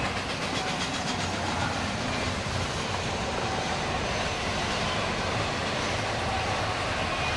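Double-stack intermodal well cars rolling past, a steady rumble and clatter of steel wheels over the rail joints.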